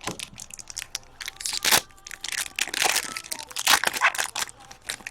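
Crinkling and crackling of plastic trading-card packaging being handled, a quick irregular run of sharp rustles.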